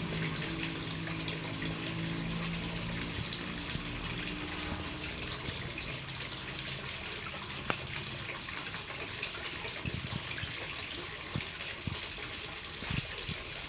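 Rain falling steadily as a dense, even hiss, with now and then a sharper drop tick. A low hum fades out in the first few seconds.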